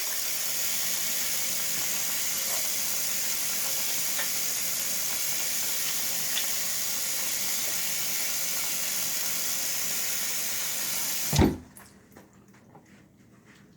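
A steady hiss, like running water, that stops abruptly with a low thump about eleven seconds in, leaving it much quieter with a few faint ticks.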